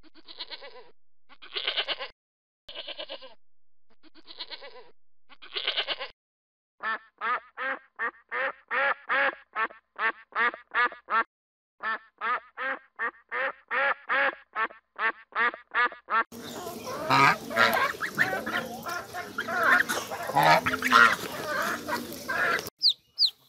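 Goats bleating, about six drawn-out calls, then a duck quacking in quick short quacks, about three a second. For the last several seconds a goose honks, and the calls run together and are louder.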